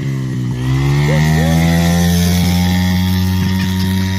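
Yamaha TT-R50 pit bike's small four-stroke single-cylinder engine held at high revs in first gear, close to the rev limiter: a steady buzzing drone that dips briefly about half a second in, then climbs back and holds.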